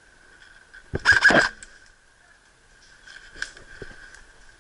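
Airsoft rifle firing a short rapid burst about a second in, a quick run of sharp clicks lasting about half a second, with a few fainter clicks and knocks later.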